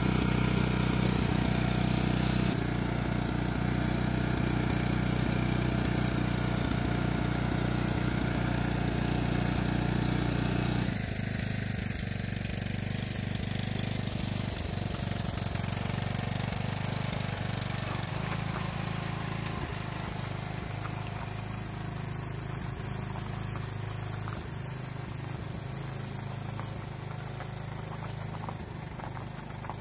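Lawn tractor's Tecumseh Enduro 15.5 engine running steadily while plowing snow. It is loud and close for the first ten seconds or so, then drops suddenly and fades slowly as the tractor moves away.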